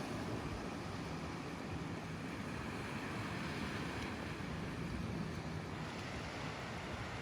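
Steady rushing noise of Pacific Ocean surf and wind, with no single event standing out.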